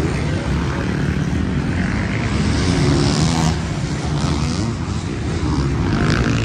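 A row of vintage two-stroke motocross bikes running together at the starting line, with the engines being revved up and down in a ragged chorus.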